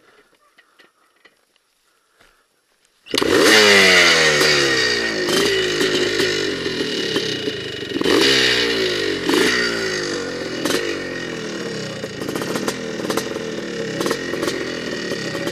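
Dirt bike engine coming in suddenly about three seconds in and revving hard, its pitch climbing and dropping several times with throttle and gear changes, with rattling clatter from the bike over the rough trail.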